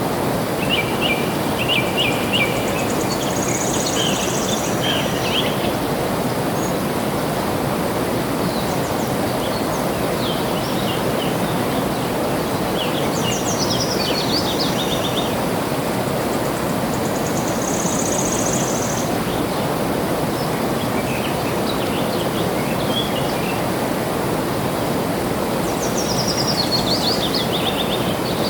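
Steady rushing of flowing water, with songbirds breaking in over it a few times in short bursts of rapid chirps and trills.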